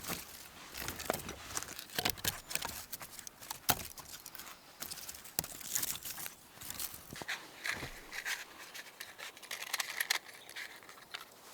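Irregular crinkling, crackling and snapping as fire-starting material and kindling are handled to light a campfire.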